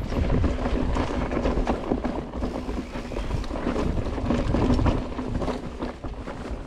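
Mountain bike riding down a steep, rocky trail: tyres rolling over rock and dirt with a steady stream of knocks and rattles from the bike, and wind rumbling on the microphone.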